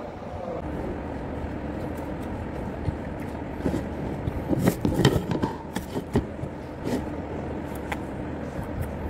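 A steady low rumble with a run of knocks, taps and rubbing sounds from about four to seven seconds in. This is handling noise on a phone microphone held close.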